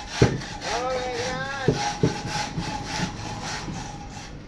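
Hand saw cutting through wood in quick, regular back-and-forth strokes, with a brief wavering high tone about a second in.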